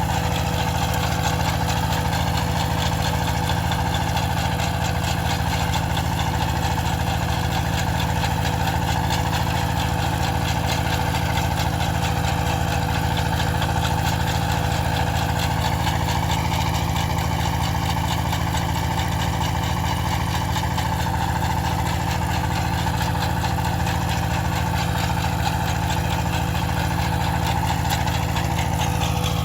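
Engine of farm machinery used for potato digging, running steadily at an even speed with no change.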